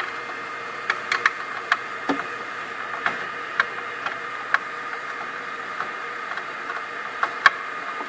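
Scattered light clicks and taps of hands and a tool working a screw on a small vacuum pump mount inside an opened analyzer. They come irregularly, about a dozen, over a steady mechanical hum.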